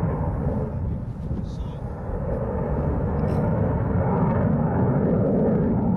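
Jet noise from a Eurofighter Typhoon's twin Eurojet EJ200 turbofans in display flight: a loud, deep, steady roar that eases slightly a second or two in, then swells again toward the end.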